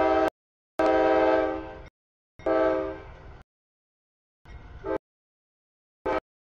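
Diesel freight locomotive's air horn sounding a series of blasts as the train comes up to a grade crossing: the crossing warning. Two loud blasts of about a second each come after a shorter opening one, then a shorter blast and a very brief toot near the end.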